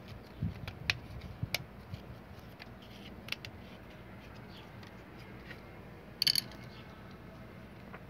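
Light clicks and taps of a washing machine's control circuit board and plastic housing being handled and fitted together: a few sharp clicks in the first two seconds, another at about three seconds, and a short, louder burst a little after six seconds.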